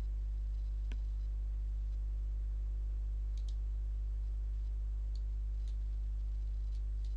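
Computer mouse clicking a few times, short sharp clicks spread out with pauses between them, over a steady low electrical hum.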